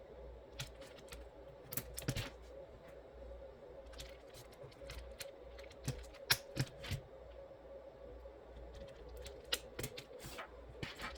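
Irregular sharp plastic clicks from a mechanical keyboard's switches and keycaps, sometimes in quick clusters, over a steady low hum.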